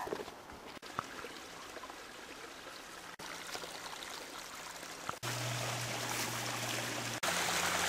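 Small forest brook trickling through a grassy ditch, the water noise getting louder in steps about five seconds in and again near the end. A steady low hum comes in with the louder stretch.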